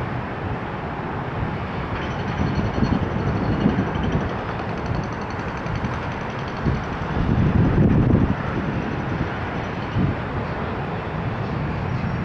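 Boeing 777's twin jet engines at takeoff thrust: a loud, steady roar with a faint high whine, swelling with deeper low rumbles every few seconds, most strongly about eight seconds in.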